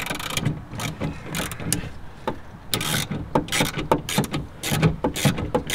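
Hand ratchet clicking in quick, irregular runs as it is worked back and forth to loosen an 8 mm bolt by hand.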